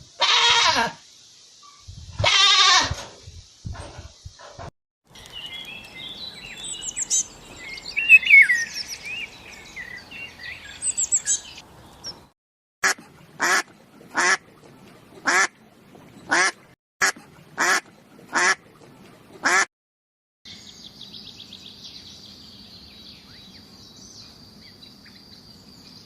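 A string of animal calls: two loud calls in the first few seconds, a spell of bird chirping and twittering, then about ten short quacks in an even series, and a steady high-pitched whine near the end.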